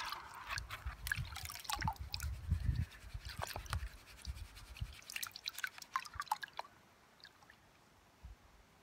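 Water sloshing and splashing in a plastic gold pan as it is swirled and dipped in a tub of water, with drips and small splashes falling back into the tub. The splashing dies down about two-thirds of the way through.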